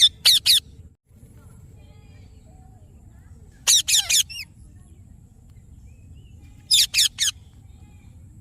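Indian ringneck parakeet giving sharp, high calls in three bursts of about three quick notes each, a few seconds apart.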